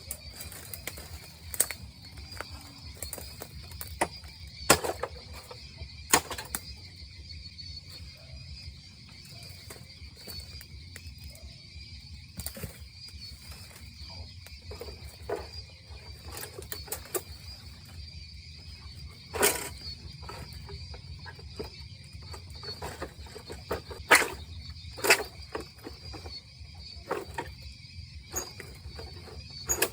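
Irregular sharp knocks and cracks of a blade chopping bamboo, a few seconds apart, over a steady high drone of insects.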